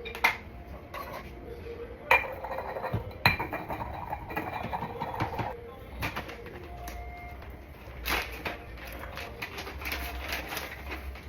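Kitchen clatter: dishes and utensils being handled, with a few sharp clinks and knocks, the loudest ones about two and three seconds in.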